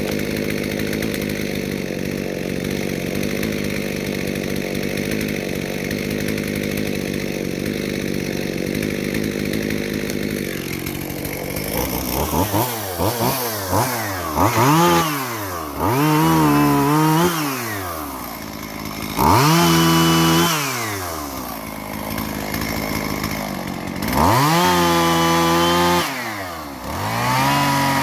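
Two-stroke chainsaw idling steadily for about ten seconds, then revved up and let back down again and again, with the revs held high for a second or two on some pulls.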